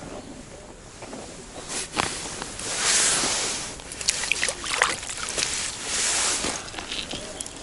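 Water splashing and sloshing in an ice-fishing hole as a roach is pulled up through it by hand, with several sharp knocks and slaps as the fish comes out onto the ice.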